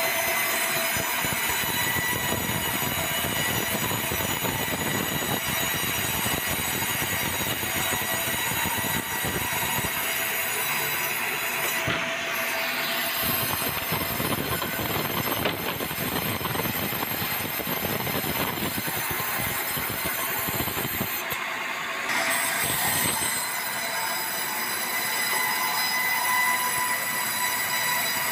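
Band sawmill's blade cutting lengthwise through a debarked meranti log: a steady high ringing whine over the rasp of the cut and the machine's running. The highest ringing dips briefly about twelve seconds in and again a little past twenty seconds.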